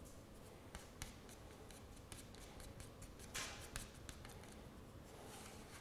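Faint scraping and clicking of one putty knife working clear putty and liquid hardener on another, with a louder scrape about three and a half seconds in.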